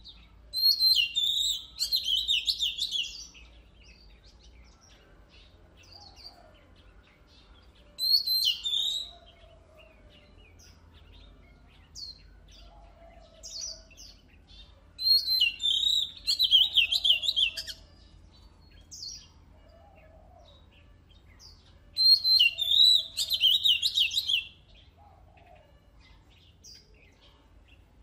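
Oriental magpie-robin singing: four loud bouts of rapid, high warbling phrases several seconds apart, with soft scattered chirps between them.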